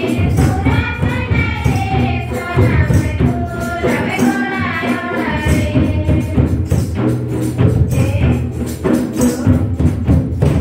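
Group of voices singing a church song, accompanied by a two-headed barrel drum and jingling hand percussion in a steady beat.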